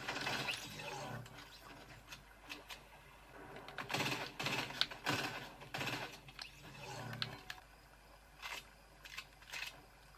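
Handling noises: scattered clicks, taps and rustles. They cluster about four to six seconds in, and a few sharp clicks come near the end.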